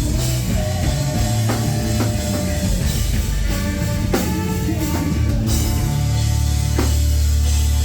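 Rock band playing live: drum kit and electric guitar with sliding, bending notes. About six seconds in, a low chord is held and rings on steadily.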